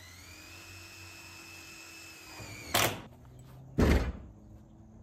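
Cordless drill running steadily for about two and a half seconds, rising slightly in pitch as it spins up, driving a fastener into the top of a PVC downpipe. Then two loud knocks about a second apart.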